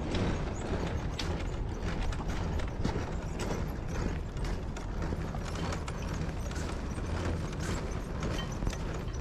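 Small wheels of a loaded hand cart rolling over a concrete path, rattling with a continuous clatter of small irregular clicks and knocks over a low rumble.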